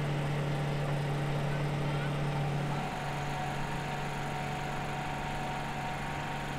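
A steady low mechanical hum, with a fainter higher tone over it, dipping slightly in level about three seconds in.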